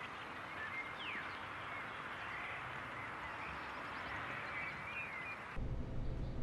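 Outdoor ambience of a steady background hiss with small birds chirping, including one quick falling whistle about a second in. Near the end it cuts to a quieter background with a low hum.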